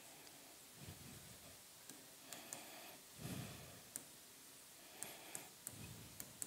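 Near silence: room tone with a few faint, scattered clicks and soft low sounds.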